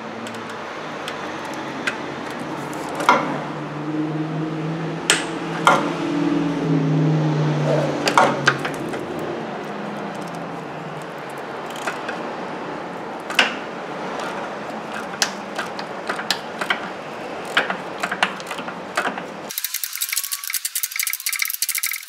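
Irregular metallic clicks and knocks of a ratchet and socket on an extension, working a corroded starter mounting bolt loose under the car, over a steady background hiss. Near the end comes a quick run of dense clicking.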